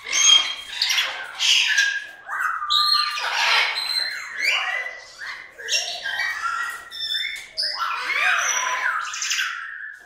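Goffin's cockatoo calling: a steady run of harsh squawks and chattering calls, mixed with short notes that slide up and down in pitch.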